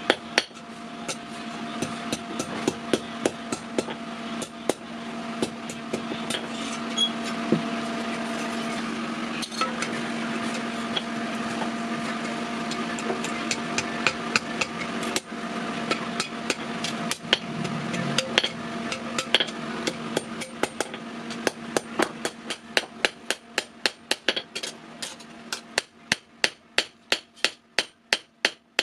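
Blacksmith's hammer striking steel on an anvil while forging a sickle blade, a quick, even run of blows at about two to three a second, each with a short metallic ring. A steady hum runs underneath and fades near the end, leaving the hammer blows on their own.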